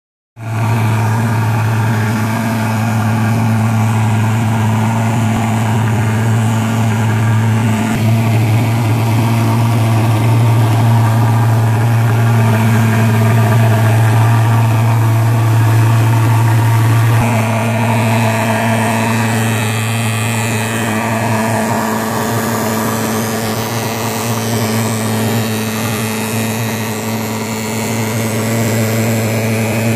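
PulsFog K-10 thermal fogger's pulse-jet engine running with a loud, steady, low buzzing drone while it lays out insecticide fog. Its tone changes slightly about halfway through.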